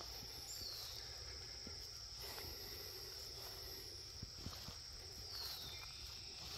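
Crickets trilling in a steady high drone, with a few faint clicks about four seconds in.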